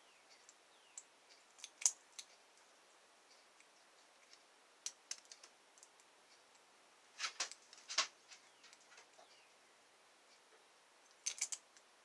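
Lock pick and tension wrench clicking against the pins inside a six-pin Master Lock ProSeries padlock core as it is picked. Scattered light ticks with a few louder clusters of clicks, the loudest about two seconds and eight seconds in.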